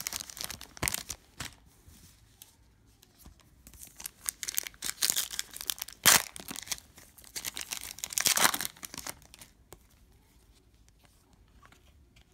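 Foil wrapper of a Panini Prizm trading-card pack crinkling and crackling in the hands as it is handled along with the cards, in three bouts, the sharpest crackle about halfway through.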